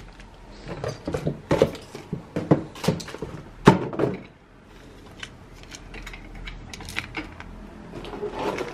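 Hard plastic Playmobil toy pieces, a bathtub and figure, clicking and knocking against each other as they are handled, with many quick clicks in the first four seconds and only a few after.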